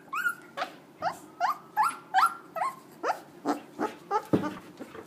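Siberian husky puppy yelping in a rapid series of short squeals, more than a dozen at about three a second, each rising in pitch, while its mother mouths and grabs it.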